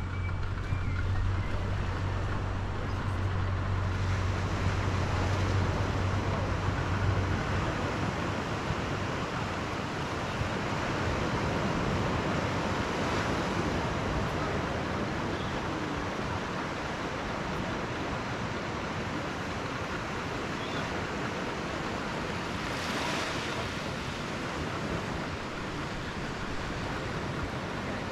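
Small waves washing onto a sandy shore in a steady wash, with a couple of larger swells around the middle and again near the end. A low, steady engine hum runs underneath for the first quarter, then stops.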